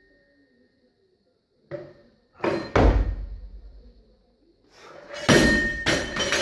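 A 77 kg barbell snatch: a thud and rattle of the plates as the bar is pulled, a heavy stomp of feet as the lifter drops under it, then about five seconds in the loaded bar with bumper plates is dropped on the floor and bounces several times, the metal ringing.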